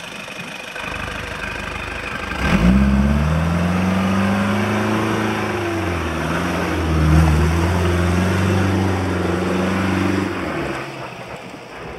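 Toyota Land Cruiser BJ73's four-cylinder diesel engine revving hard under load as the truck claws its way up out of a mud pit. It comes in loud about two and a half seconds in, dips and rises again, is loudest about seven seconds in, then falls away near the end as the truck drives off.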